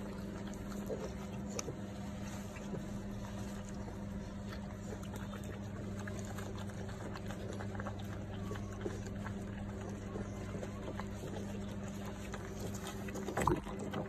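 A steady low mechanical hum, with faint rustling and handling sounds as hands work over a dog in labour with tissue, and a brief sharp sound near the end.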